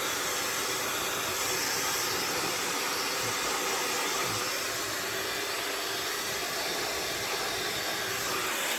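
Handheld hair dryer running steadily on a strong airflow setting while drying the ends of the hair, then switched off abruptly at the very end.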